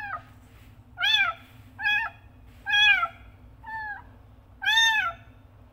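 Young kitten meowing loudly and repeatedly, about six high calls roughly a second apart, each rising then falling in pitch: a kitten crying for its mother.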